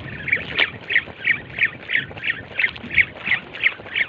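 Fishing reel being cranked as a jig is worked: short squeaky chirps in a steady rhythm, about three a second.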